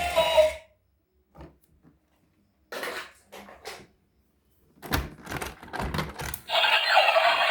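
Scattered short clicks and rattles of handling, a few faint ones and then a denser cluster, in a gap between stretches of background music that stops about half a second in and comes back near the end.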